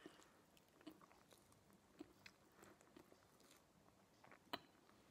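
Faint close-up chewing of a mouthful of stuffed pizza: soft wet mouth clicks and small crunches scattered through, with a sharper click about four and a half seconds in.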